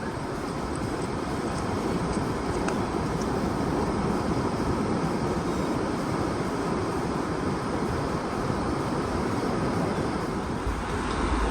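Ocean surf: a steady wash of breaking waves, with wind buffeting the microphone near the end.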